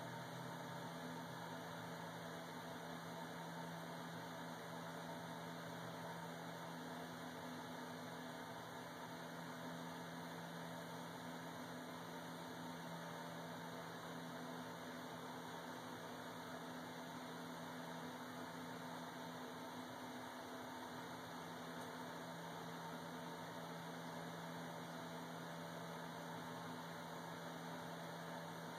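A steady low hum over a constant hiss, unchanging throughout, with no distinct sounds from the feeding hawk.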